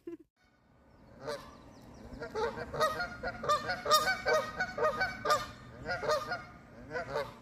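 Canada geese honking: a rapid series of short, nasal calls that begins about a second in and keeps going until near the end.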